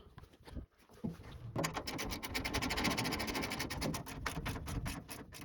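Mini excavator's diesel engine running with a fast, even clatter, which becomes loud and steady about a second and a half in.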